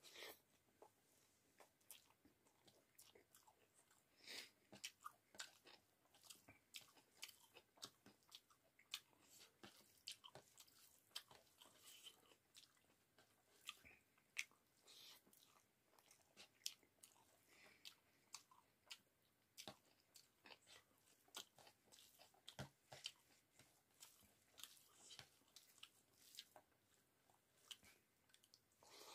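Faint, close-up eating sounds from a person eating rice and cauliflower-potato curry by hand: irregular chewing clicks and mouth smacks, with soft squishes as the fingers mix the rice on a steel plate.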